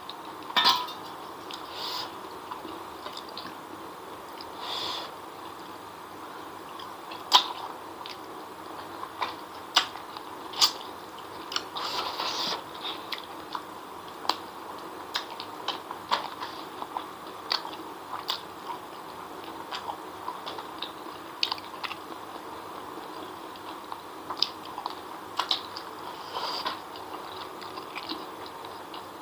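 Eating sounds of a person chewing spicy chicken feet and fried noodles eaten by hand, with many short, sharp, wet clicks scattered throughout.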